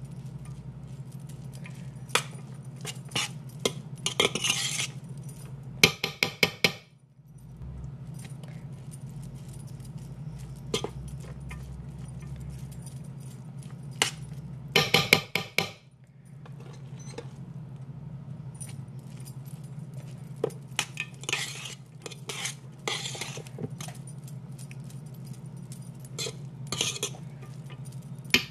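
Light clinks and scrapes against a metal serving bowl as cooked rice and lentils are mixed in it by hand and with a spoon, coming in scattered bursts over a steady low hum.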